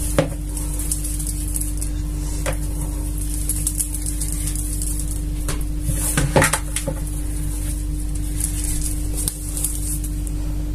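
Hands working soft dough in a plastic mixing bowl, with a few short, light knocks of the bowl and tray on the worktop, over a steady low hum.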